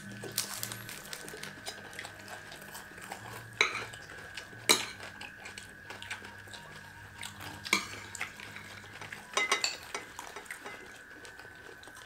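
Metal spoons clinking and scraping on ceramic plates as people eat, a few sharp clinks scattered through, the loudest just under five seconds in and a quick cluster about nine and a half seconds in.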